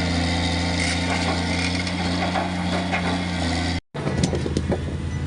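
Excavator's diesel engine running steadily under load, with scraping and clattering of boulders being handled. The sound cuts out for a moment just before four seconds in, and a few sharp knocks of rock follow.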